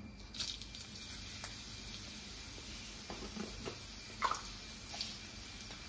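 Hot oil sizzling quietly in a cheenachatti (Kerala wok) as dried red chillies fry in it, with a few brief, faint taps a few seconds in.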